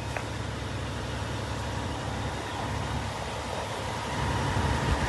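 A steady low engine-like rumble with a hiss over it, growing a little louder near the end.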